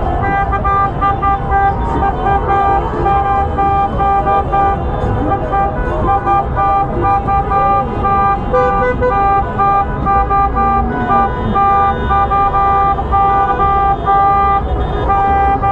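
Many car horns honking in celebration, some held for seconds and others tooted in short blasts, overlapping over steady street noise.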